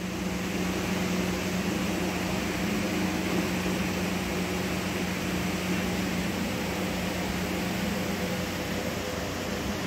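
Steady background hum with an even hiss, like a fan or air conditioner running; no distinct cat sounds stand out.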